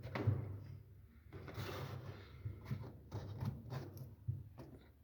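Handling noises at a washing machine's door and rubber seal: a run of short clicks and knocks, with a longer scraping rub about a second and a half in, over a low hum.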